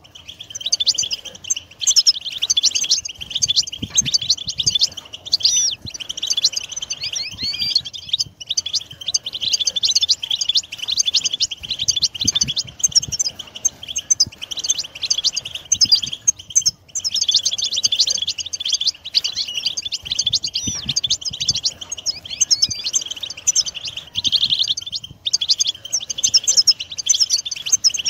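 European goldfinch song: a dense, continuous stream of rapid twittering and trilling notes, broken only by a few brief pauses.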